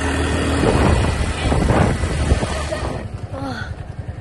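Motor scooter ride heard from the pillion seat: the engine's low hum, road noise and wind rushing over the microphone. About three seconds in it drops away to a quieter background with a brief voice.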